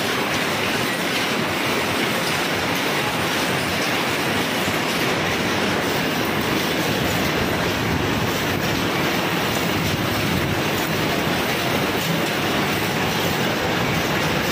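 Paper cup making machine running, a steady, dense mechanical clatter that stays even throughout.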